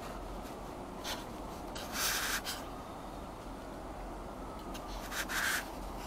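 Steady rain heard from inside a stopped car, a muffled hiss, with short sharper swishes about one, two and five seconds in.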